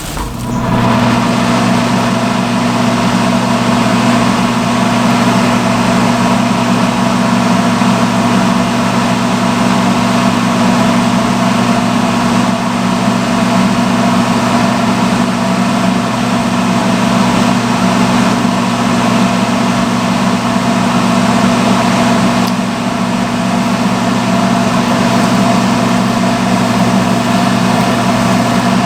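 Salon hood hair dryer switching on about half a second in and then running steadily on its hottest setting: a steady low motor hum with a rush of fan air.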